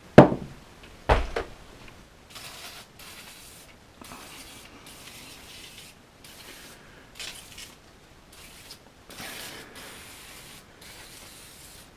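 Short hissing sprays of Liquid Wrench penetrating oil onto an RC truck's chassis and wheels, repeated every second or two. Two sharp knocks in the first second and a half are the loudest sounds.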